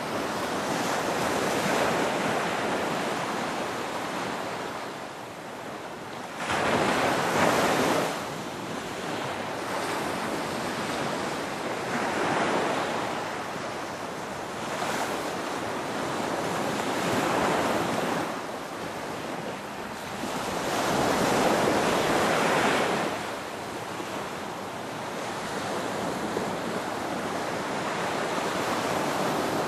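Ocean surf: waves breaking and washing in, the rushing noise swelling and falling back about every five seconds, with the strongest surges about seven seconds in and again around twenty-two seconds.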